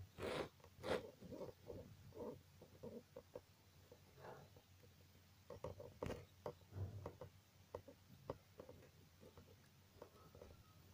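Faint pencil graphite scratching on sketchbook paper in short, irregular strokes, as a small signature is written by hand. Two louder knocks come within the first second.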